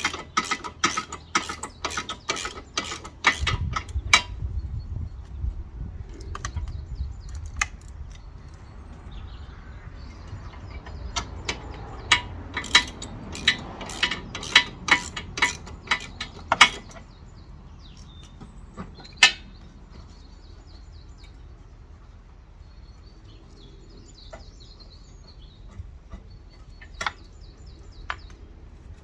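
Socket ratchet clicking as small bolts holding the radiator shroud are undone: a quick run of clicks in the first few seconds, more runs around the middle, then a few single clicks.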